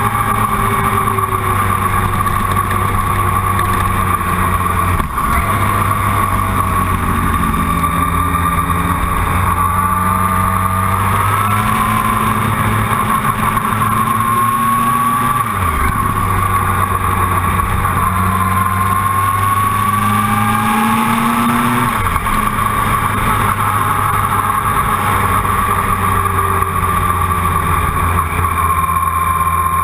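Motorcycle engine running at road speed, its pitch rising and falling with the throttle, with three brief drops where the rider changes gear, about five, sixteen and twenty-two seconds in.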